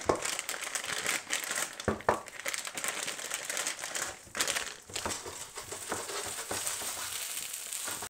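Plastic packet crinkling and rustling as frozen meat-free sausages are shaken out of it into a frying pan, with a few sharp knocks in between. Hot oil sizzles steadily under the sausages near the end.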